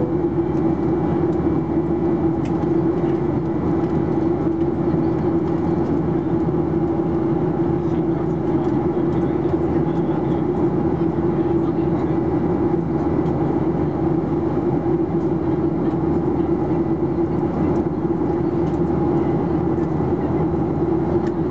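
Steady cabin noise inside a Boeing 737-800 in flight: the drone of its CFM56-7B turbofan engines and the airflow over the fuselage, with a strong low hum running through it.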